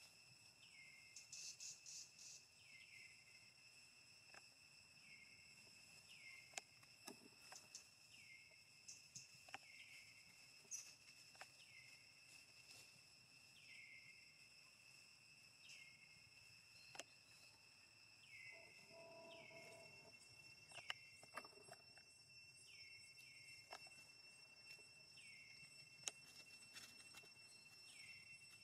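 Faint outdoor insect chorus: steady high trilling, with a short falling call repeating about every second and a half to two seconds and scattered light clicks. A brief lower, pitched sound comes about two-thirds of the way through.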